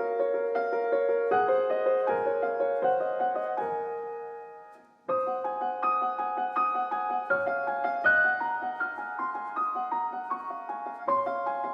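Background piano music: a slow run of single notes fades out about four seconds in, then after a brief gap the piano starts again.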